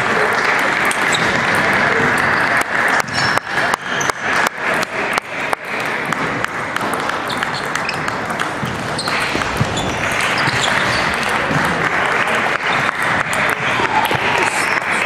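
Table tennis rally: a quick run of about a dozen sharp clicks, the celluloid ball striking bats and table about three or four times a second, starting a couple of seconds in and lasting some three seconds. Under it is the steady murmur of a busy sports hall.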